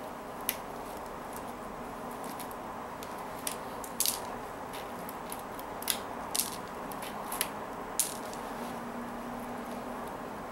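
Plastic pony beads clicking as thread is pulled out of a peyote-stitch kandi panel: a scattering of sharp, separate clicks over steady room noise.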